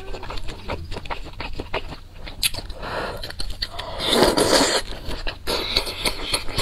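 Close-miked eating sounds: wet chewing clicks, then a loud slurp of noodles about four seconds in.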